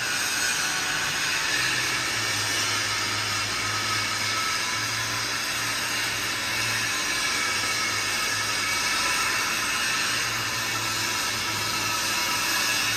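A steady hiss, with a faint low hum joining about two seconds in.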